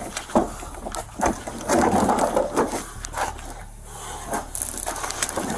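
Scuffling during an arrest: clothing and fabric rustle and rub against a body-worn camera's microphone, with irregular knocks against a plastic recycling bin, the sharpest about a third of a second in.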